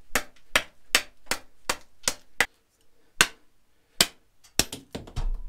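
Condor Heavy Duty Kukri chopping into a wet green stick: a quick run of about seven sharp chops, then a few more spaced-out strikes after a short pause.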